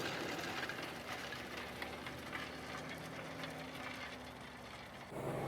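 CLAAS Axion 960 Terra Trac tractor working under load, pulling a cultivator: a steady engine drone with mechanical rattling from the tracks and implement, slowly growing fainter. The sound changes abruptly about five seconds in.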